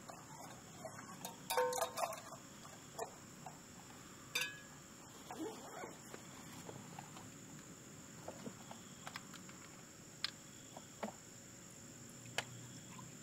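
Scattered clinks and knocks of camp cookware being handled on a wooden table, as a stainless pot is taken out and set on a small gas stove, over steady cricket chirping. The loudest clatter comes about a second and a half in, with a brief metallic ring.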